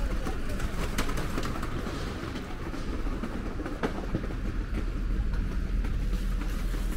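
Outdoor street ambience on a cobbled market square: a steady low rumble with a faint noise haze and a couple of light clicks, about a second and about four seconds in.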